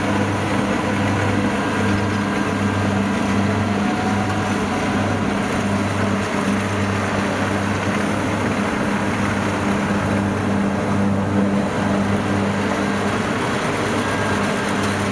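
Kubota DC-60 rice combine harvester running steadily while it drives and cuts through the rice crop: a continuous engine hum over the noise of the machine's works.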